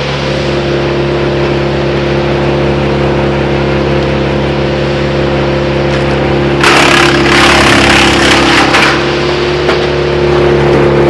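Wood chipper engine running at a steady speed, then about two-thirds of the way in the chipper bites into branches with a loud, crackling rush of chipping for about two seconds before settling back to steady running.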